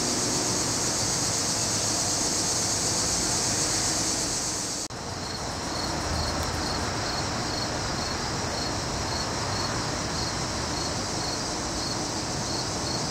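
Late-summer evening insect chorus: a dense, steady high buzz until an abrupt cut about five seconds in, then regular pulsed high chirping over a steady background hiss.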